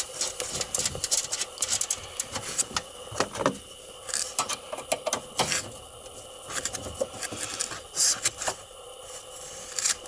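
A nut being threaded by hand onto a bolt through a Jeep's sheet-metal floor pan, giving irregular small metallic clicks and scrapes.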